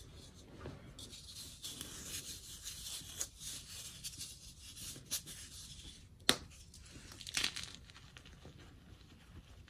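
A dyed, crumbly powder block scraped, held and crushed by hand in a pile of loose powder: gritty crunching and rubbing, with one sharp snap about six seconds in as the block breaks, then more crumbling.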